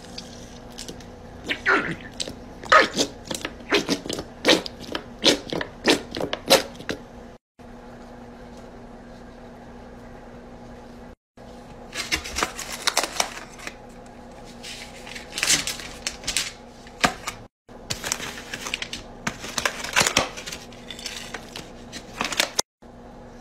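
Food being handled in a foam takeout container: clusters of sharp clicks, taps and crackles over a steady low hum, broken by several brief silent gaps.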